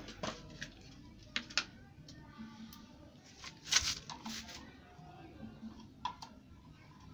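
Scattered light clicks and taps of motorcycle clutch plates being handled and fitted, with a sharper knock a little before the four-second mark.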